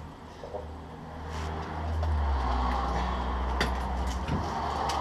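A steady low motor drone that swells about two seconds in and then holds, with a few faint clicks.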